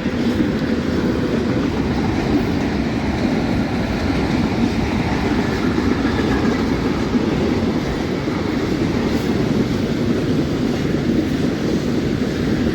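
Freight train of railway cars rolling past, a steady, loud noise of wheels on track. The walker takes the cars to be empty.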